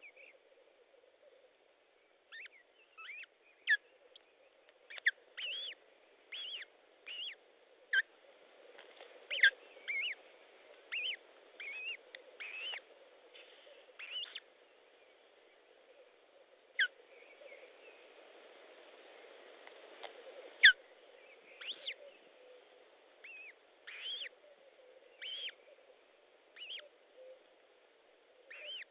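Osprey at the nest giving a long series of short, high chirping calls, about one a second, each a quick glide up or down, with the loudest about ten and twenty seconds in. A faint steady low hum runs underneath.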